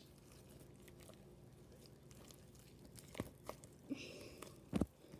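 Homemade glue-and-detergent slime being kneaded and squeezed in the hands: faint, then a few short, wet clicks and pops from about three seconds in.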